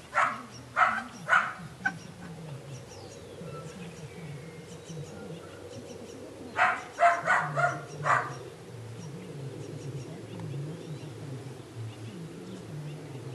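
Belgian Malinois puppy barking in short yaps: a quick run of four right at the start, then five more in close succession about six and a half seconds in.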